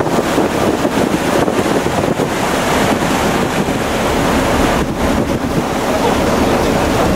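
Wind buffeting the microphone on the deck of a moving harbour cruise boat, over the wash of choppy water along the hull; a loud, unbroken rush with an uneven low rumble.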